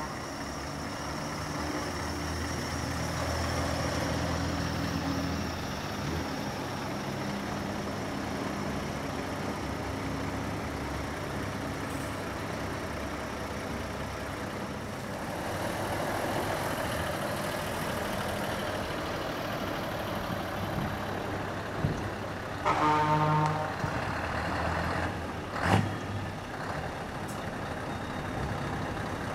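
Heavy trucks' diesel engines running and passing at low speed. One truck horn sounds for about a second near the end, followed shortly by a brief sharp sound.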